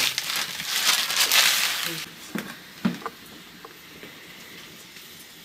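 Water at a rolling boil in a wide metal pan of noodles over a wood fire: a loud steady hiss and bubbling that cuts off suddenly about two seconds in. A few light knocks follow.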